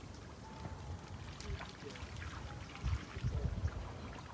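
Faint, indistinct voices over quiet outdoor ambience, with low rumbling thumps about three seconds in.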